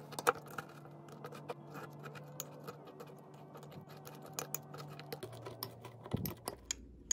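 Metal spoon clicking and scraping against a ceramic mug in quick, irregular taps as golden Oreo cookies are broken up and mashed in milk into a batter-like paste.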